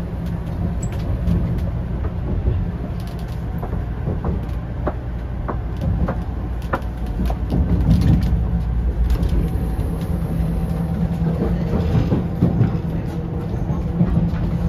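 Cabin noise inside a 500-series Shinkansen under way: a steady low rumble with scattered light clicks and knocks.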